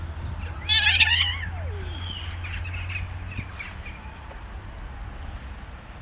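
A single short, harsh, squawking animal cry about a second in, followed by fainter calls over a steady low hum.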